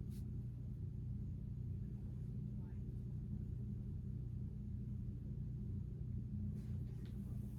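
A steady low hum, with a few faint ticks of handling over it.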